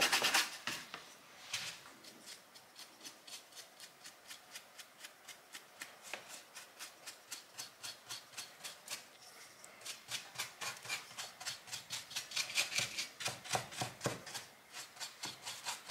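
Flat paintbrush dry-brushing paint over plaster model rock, the bristles scraping in quick back-and-forth strokes, several a second. The strokes are faint and grow louder for a few seconds in the second half.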